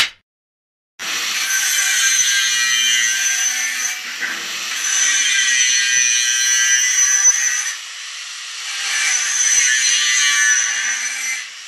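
Angle grinder cutting steel square tubing: a loud, gritty, high whine that starts about a second in and swells and eases three times as the disc bites into the metal and lets off. A single sharp clap at the very start.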